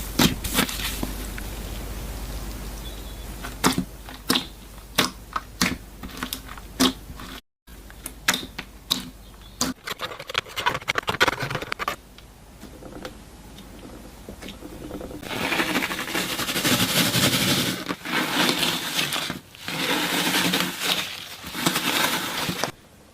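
Crunchy slime being squeezed and pressed, giving a series of sharp crackles and pops. About halfway through it turns into a denser, continuous crunching rustle, with brief breaks between clips.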